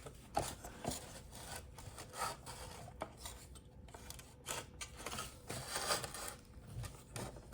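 Car side-mirror parts being handled and fitted together by hand: scattered light clicks with rubbing and scraping.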